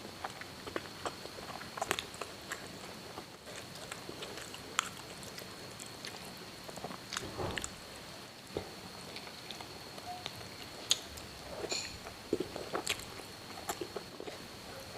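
A person chewing and biting soft siomay and stuffed tofu close to the microphone, with irregular wet clicks and smacks. A faint, steady, high-pitched whine sits behind it.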